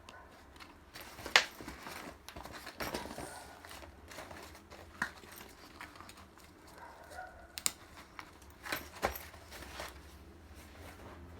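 Hands handling a backpack and its packaging: irregular rustling and crinkling broken by a few sharp clicks and knocks. The loudest knock comes about a second in, and a cluster follows near nine seconds.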